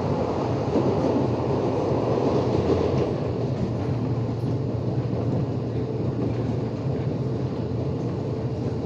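Steady running noise of a CPTM electric commuter train heard from inside the carriage: an even rumble of wheels on rail and traction equipment while the train is under way.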